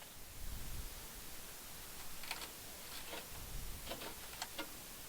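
A few faint, scattered clicks and taps as an air filter is worked into the filter slot of a furnace.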